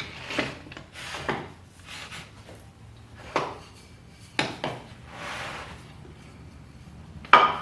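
Wooden jig parts being handled and set in place on a table saw: a handful of separate knocks and clatters, a short sliding rub about five seconds in, and the loudest knock near the end.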